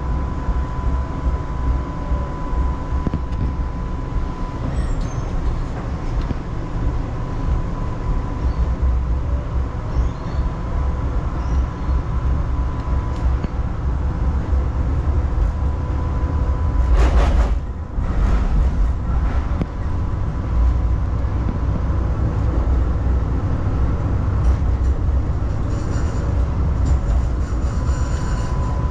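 Electric tram running along its rails, heard from inside the passenger cabin: a steady low rumble of wheels and motors with a faint steady whine at times. A brief loud clatter comes a little past halfway.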